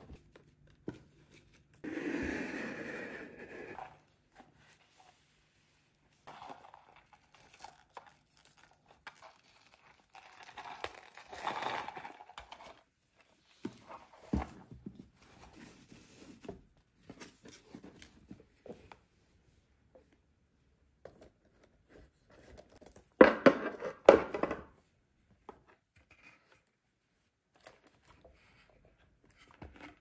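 Paper and cardboard gift packaging being handled and unwrapped: intermittent rustling and crinkling of paper, ribbon and box, with a louder burst of crinkling or tearing about three-quarters of the way through.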